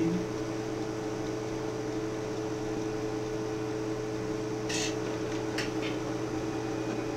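Steady electrical hum with fan-like noise from running equipment, with two brief soft hisses about five seconds in.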